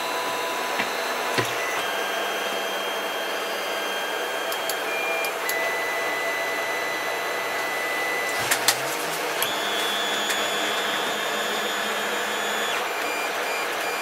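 3D printer starting a print: its fans run steadily while the stepper motors whine at pitches that shift every second or so as the print head moves, with a few faint clicks.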